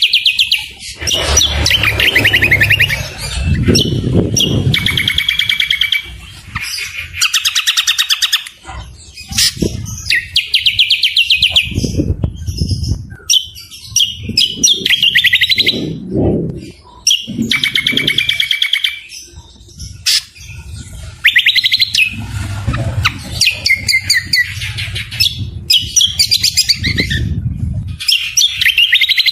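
Recorded birdsong for bird training: cucak kombo and other birds in loud, fast trilling and chattering phrases, each a second to a few seconds long with short breaks. Rougher, lower calls run alongside the trills.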